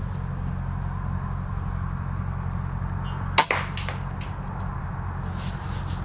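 A single shot from a Weihrauch HW100 pre-charged pneumatic air rifle about halfway through, a sharp crack followed by a few fainter clicks. A steady low hum runs underneath.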